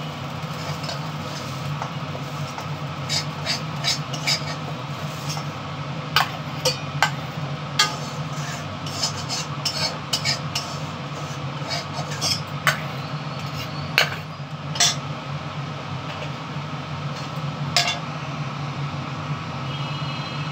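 Metal spatula scraping and clinking against a steel kadhai as fried parwal pieces are scooped out into a bowl: a scattered series of sharp clinks over a steady low hum.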